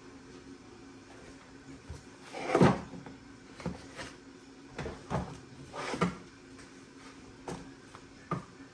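A series of household knocks and clunks, like cupboard doors or drawers being handled: the loudest about two and a half seconds in, then several lighter ones roughly a second apart.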